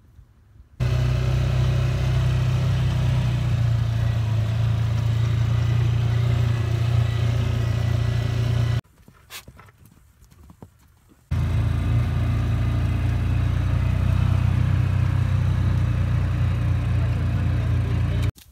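A steady engine running, in two stretches of about eight and seven seconds, each starting and stopping abruptly.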